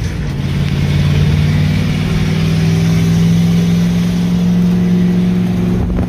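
Old Chevy grain truck's engine at full throttle, pulling hard in gear just after a shift, its pitch climbing slowly and steadily as the loaded truck gains speed.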